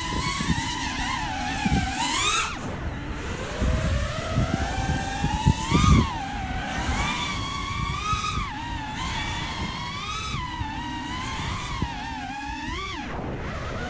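FPV freestyle quadcopter's motors and propellers whining, the pitch swooping up and down with the throttle and peaking about five times in hard punches, over a rush of wind.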